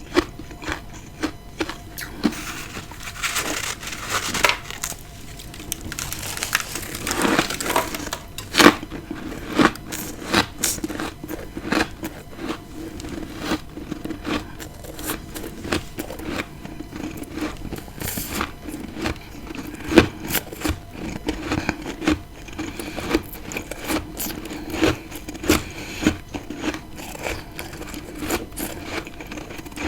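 Close-up biting and chewing of freezer frost, with crisp, irregular crunches and crackles.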